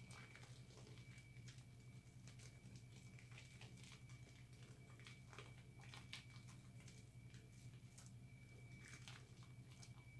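Faint wet squishing and crackling of thick soap lather as hands work a bar of recycled soap, in quick irregular little clicks.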